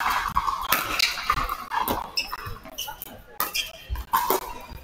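Pickleball paddles striking the hard plastic ball in a short exchange at the net, a series of sharp pops, with sneakers squeaking briefly on the court surface about two seconds in.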